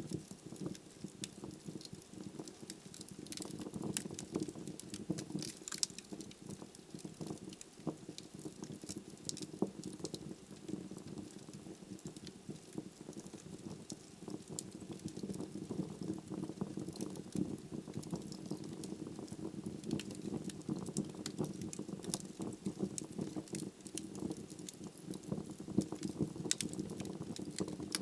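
Wood logs burning in a fireplace: a steady low rush of the fire with frequent, irregular crackles and sharp pops from the wood.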